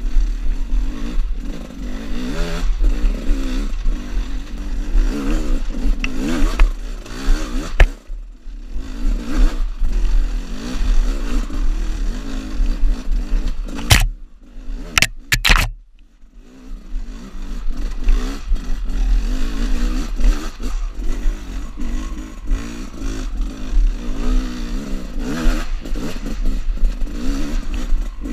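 Gas Gas EC 300's two-stroke single-cylinder engine being ridden, its note rising and falling with the throttle. It drops away briefly twice, and there are a few sharp clacks in the middle.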